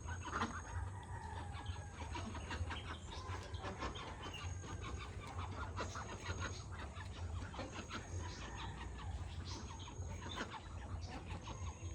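A flock of domestic fowl calling and clucking continuously, many short overlapping calls, over a steady low hum.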